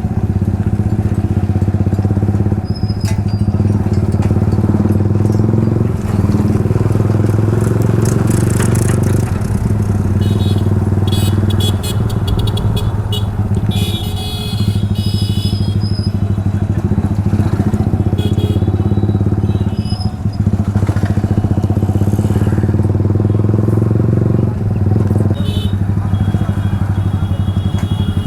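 Yamaha R15's single-cylinder engine running through a loud aftermarket Akrapovic slip-on exhaust while riding, a steady drone that dips briefly several times as the throttle is eased.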